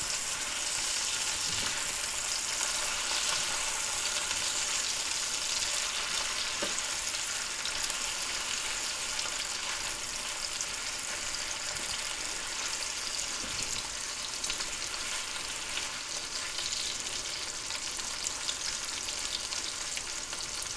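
Smoked sausage links sizzling in hot oil in a non-stick skillet, a steady frying hiss. A few faint knocks, such as a utensil against the pan, are scattered through it.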